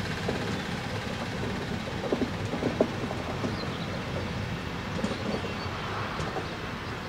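DB Intercity passenger coaches rolling past on the track: a steady rumble of wheels on rail with scattered short clicks and knocks, the loudest a little under three seconds in.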